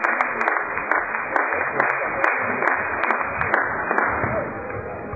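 Spectators applauding a won point at a badminton match, a dense patter of handclaps that thins out and fades about four seconds in.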